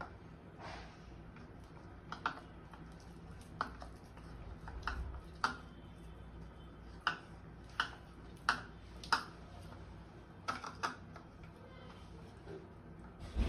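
About a dozen light, sharp clicks and taps at irregular intervals as food balls are coated by hand in small plastic bowls: bowls and hands knocking on the kitchen counter.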